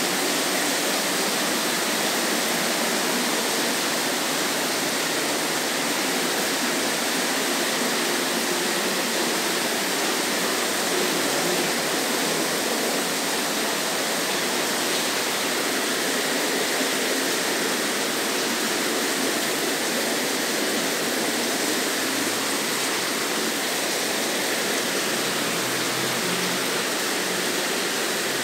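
Rain falling, a steady even hiss that does not change.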